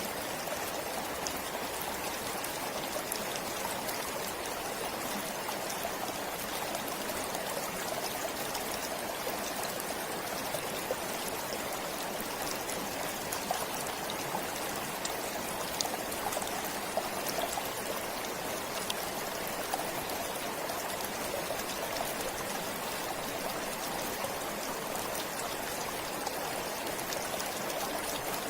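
Forest stream flowing: a steady rush of running water with many small splashing ticks.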